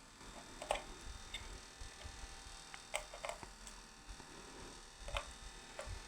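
Scattered light plastic clicks and knocks, about five of them, as a digital multimeter's plastic case is worked open by hand, over a faint steady mains hum.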